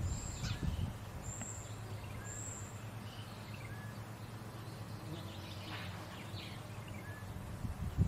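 Small songbirds calling in woodland: three short, thin, high-pitched whistles in the first three seconds and scattered soft chirps through the rest, over a faint steady low rumble.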